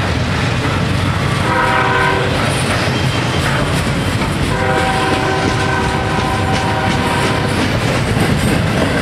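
Double-stack intermodal freight train passing close by, its well cars rumbling and wheels clacking over the rail. A locomotive horn sounds over it: a short blast about a second and a half in, then a long one of about three seconds starting about halfway through.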